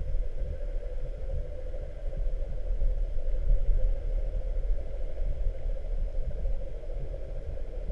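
Muffled underwater ambience picked up by a camera held beneath the sea surface: a steady low rumble with a constant hum running through it.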